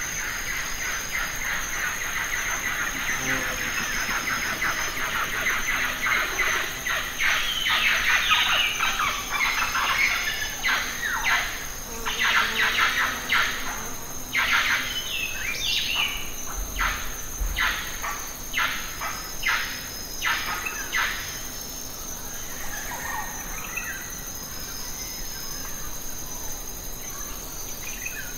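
Birds calling outdoors: a high chatter, then a long run of sharp repeated calls, about two a second, that eases off about three quarters of the way through.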